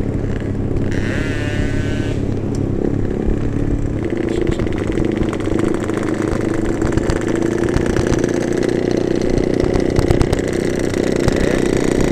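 Two-stroke motorcycles, Yamaha RX Kings among them, running together at cruising speed with a rapid crackling exhaust note. The crackle grows denser from about four seconds in as more bikes ride alongside.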